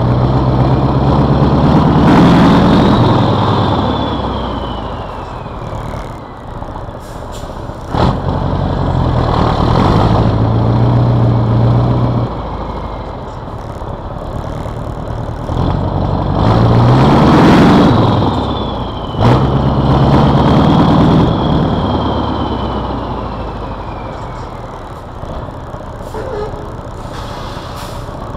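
Scania 142M's turbocharged V8 diesel heard close to its vertical exhaust stack as the truck drives, pulling up through the revs and easing off several times, with a turbo whistle falling away each time the throttle lifts. A short sharp click comes between pulls, twice.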